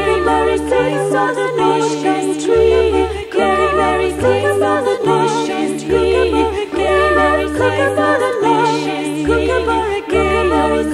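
Music: a group of voices singing with vibrato over a low bass line that moves in steps between long held notes.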